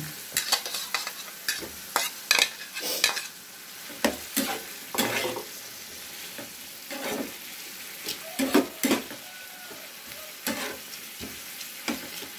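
A spatula scraping and knocking against a frying pan in irregular bursts, stirring a salted-squid stir-fry that sizzles steadily in oil and a little water.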